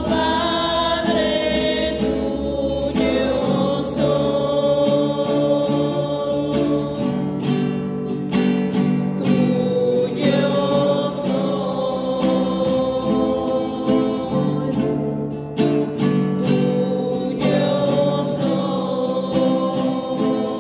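Christian worship song: a choir singing sustained lines over strummed acoustic guitar.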